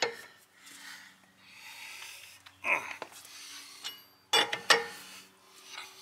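Four-way cross lug wrench clanking on the lug nuts of an aluminum car wheel as it is fitted and turned to break the nuts loose: a few sharp metal clanks, two close together about four and a half seconds in. Soft gusts of wind noise on the microphone come and go between them.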